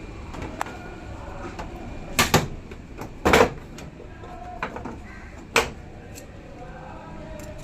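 Several sharp clunks and knocks, as of hard parts being handled or set down: a double knock about two seconds in, the loudest a second later, another after five seconds, and lighter clicks in between, over a steady low hum.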